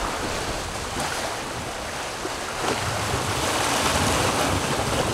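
Sea water rushing and splashing along the hull of a Leopard sailing catamaran under way, with wind noise on the microphone. The rush grows a little louder about three seconds in.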